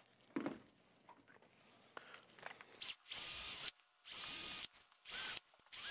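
Cordless drill drilling holes through a paper mounting template into wood for a toilet flange adapter, in four short bursts each under a second long, the motor whining under the cutting noise.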